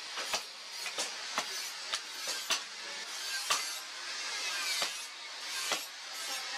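Hand hammer blows on a red-hot steel cleaver blade resting on an anvil, a dozen or so uneven strikes about two a second over a steady hiss, as the blade is forged to shape.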